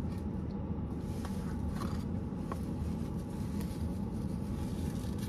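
Steady low rumble inside a parked car's cabin, with a few faint rustles of a paper food box and napkin.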